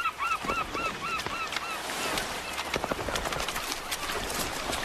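Herring gulls calling in a quick run of short arched calls, about four a second, that stop about two seconds in. After that comes a patter of sharp clicks and splashes as spawning capelin thrash at the water's edge.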